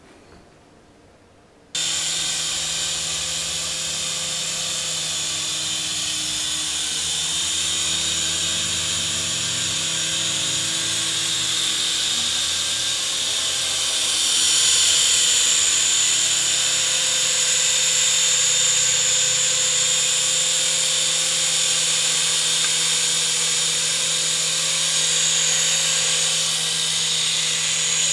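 Syma S111G toy RC helicopter flying: the steady high-pitched whine of its small electric motors and the whir of its rotors. It cuts in suddenly about two seconds in and gets a little louder about halfway through.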